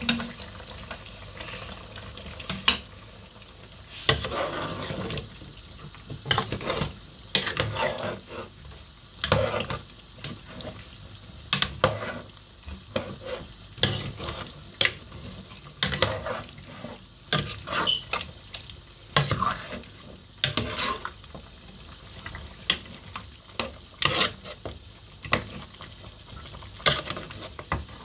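Stirring stew in aluminium cooking pots: the spoon knocks and scrapes against the metal sides many times at an irregular pace, over a steady sizzle of frying.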